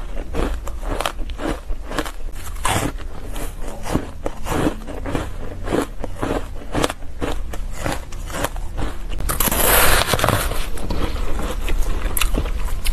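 Close-up chewing of frozen ice: rapid, crackly crunching as the ice breaks up between the teeth. A louder, longer crunch comes about nine seconds in.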